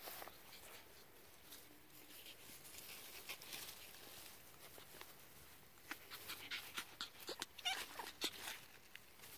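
Pomeranian puppy whimpering softly, faint. In the second half come a quick run of small clicks and scuffs and a couple of short squeaky whines.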